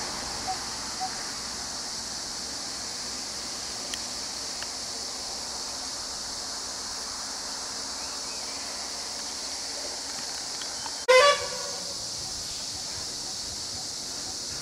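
A vehicle horn gives one short, loud blast about eleven seconds in, over a steady high-pitched hiss. A few short beeps, about two a second, stop about a second in.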